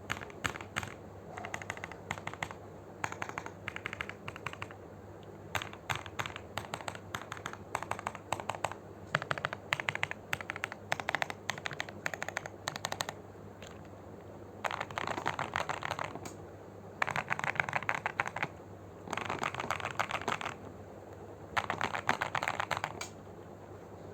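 Custom 60% mechanical keyboard (Tofu60 kit with filmed, Krytox 205g0-lubed Boba U4T tactile switches and clone GMK Red Samurai keycaps) being typed on in bursts of rapid keystrokes with short pauses between them. The bursts in the second half are longer and faster, like continuous typing.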